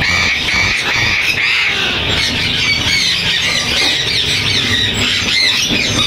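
Caged lorikeets screeching and chattering, many shrill calls overlapping without a break.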